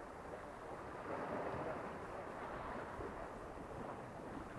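Steady rush of sea waves washing against shore rocks, mixed with wind.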